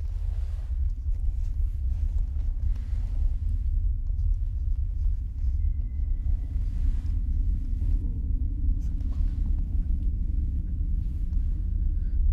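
A deep, steady rumbling drone, the kind laid under a tense horror-film scene, with faint scattered higher noises over it.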